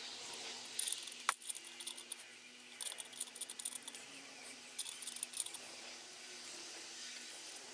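Light metallic clinking of a spanner working the nuts on a gearbox casing, with small metal parts clinking in the hand: a few short bursts of clicks and one sharper click about a second in, over a faint steady hum.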